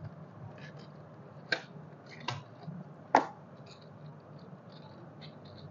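Handling clicks and light rattles of a boxed set of metal cake-piping nozzles in a clear plastic case as it is taken out of its packaging: three sharp clicks in the first half, then a few faint ticks.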